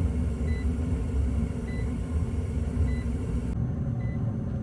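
Trane XR gas furnace running on a call for heat: a steady low rumble from the draft inducer motor, with faint short high beeps about once a second.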